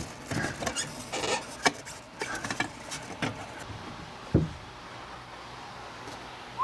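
Clicks, scrapes and knocks of hand work on the prototype Jiger ATV's metal chain-drive parts, as an aluminum plate is worked loose. There is one low thump a little past halfway, then it goes quieter.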